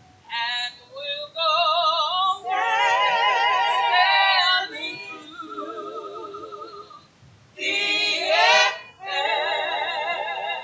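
Women singing a church song into microphones, in several phrases with short breaks between them, their voices wavering with vibrato.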